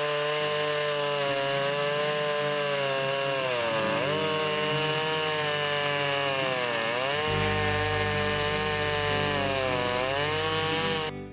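Husqvarna two-stroke chainsaw on a chainsaw mill, running at high revs as it rips through a log. Its pitch sags briefly three times as the cut loads it, and the sound cuts off suddenly near the end.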